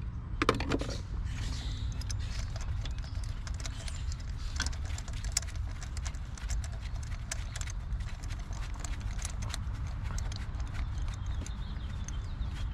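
Ratchet and socket clicking in irregular runs while a spark plug is worked back and forth into its thread, over a steady low background rumble.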